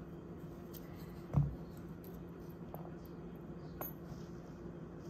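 Quiet handling of a folding knife and a small screwdriver while fitting the knife's handle screws: a few faint clicks and one soft thump about a second and a half in, over a steady low hum.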